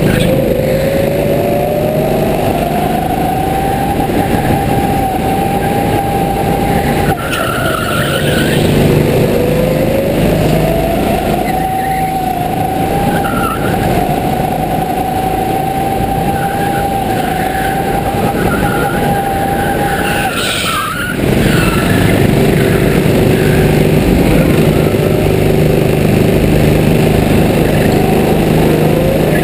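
Go-kart motor heard from onboard during a lap. Its pitch climbs as it accelerates, holds steady at top speed, and falls off twice as the kart slows for corners, over a steady low rumble.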